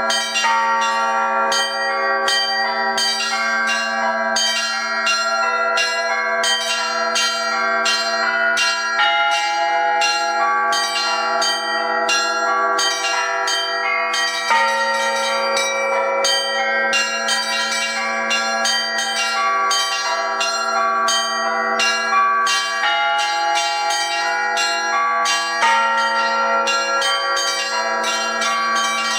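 Russian Orthodox art ringing on thin-walled bells together with thick bila (struck metal plates), played as a quick, unbroken stream of strikes over a steady low ringing tone. The mix of pitches shifts twice, about halfway through and near the end.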